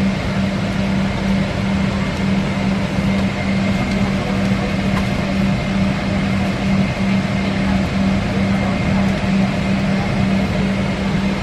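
Airliner cabin noise in flight: a steady rush of air and engine drone with a constant low hum.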